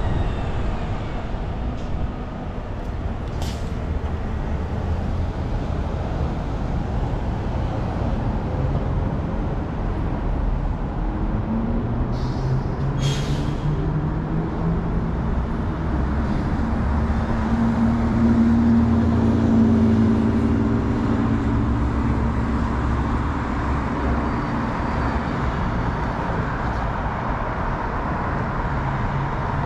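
City street traffic heard from a bicycle: a constant low rumble and hiss of passing vehicles. About twelve seconds in, a large vehicle's engine hum builds and holds for several seconds, with a short sharp hiss about a second after it starts.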